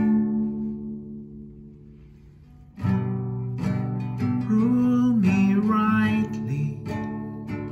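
Acoustic guitar strumming chords: a chord rings out and fades away, then the strumming starts again about three seconds in and carries on steadily.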